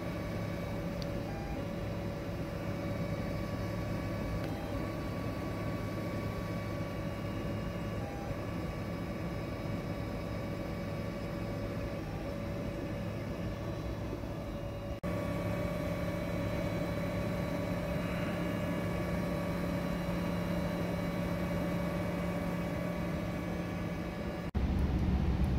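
Da Vinci Super 3D printer running at the start of a print: a steady hum of its fans, with several steady whining tones from the stepper motors that break off briefly every few seconds as the head moves.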